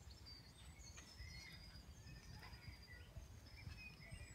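Faint birdsong: many short, high chirps and twitters from small birds, over a low rumble.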